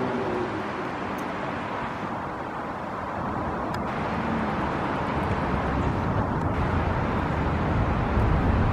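Outdoor city noise: a steady rush of wind on the phone's microphone over the sound of street traffic, with a low rumble swelling toward the end.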